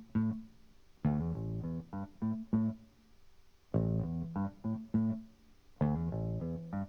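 Groovy 1970s-style music: a plucked guitar and bass riff played in short phrases with brief pauses between them.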